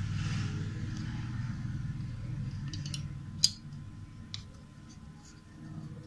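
Small sharp clicks from a Whirlpool washing-machine door-lock switch being handled as its lever is pushed down to close the contacts. The loudest click comes about three and a half seconds in and another about a second later, over a low steady hum.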